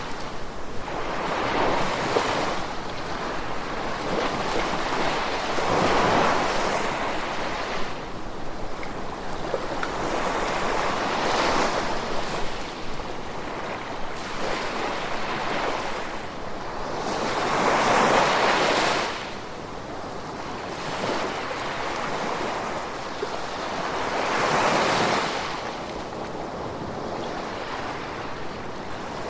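Gentle ocean waves washing in, each swell rising and falling every few seconds over a steady hiss, with the strongest waves about two-thirds of the way through and near the end.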